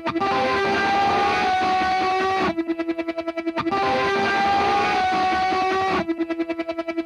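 Instrumental post-punk music led by effects-laden electric guitar. Dense, distorted passages alternate about every three seconds with short stretches of one note pulsing rapidly, about ten times a second.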